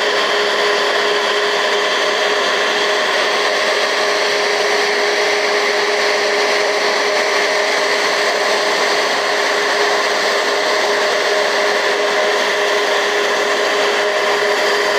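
Boeing 737 jet engines running at idle as the airliner taxis in to the gate: a steady rushing whine with a constant hum in it.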